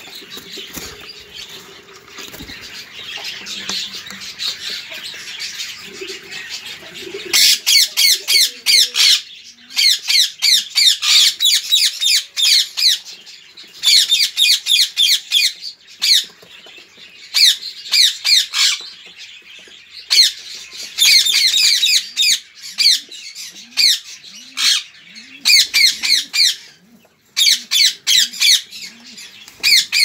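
Ringneck parakeet chicks in a nest box calling: bursts of short, rapidly repeated high calls from about seven seconds in, broken by short pauses. Before that, rustling and scraping as an adult moves in the wood-shaving bedding.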